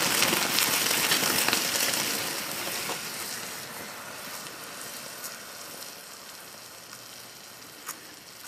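Welding thermite burning in a refractory crucible: a loud hiss full of crackles as sparks spray out, fading steadily after the first two seconds as the reaction dies down, with a few faint pops near the end.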